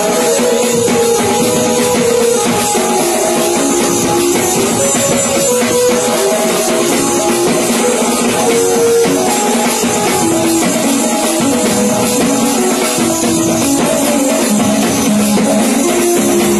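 Loud music: a melody of held notes, changing every second or so, over a steady backing.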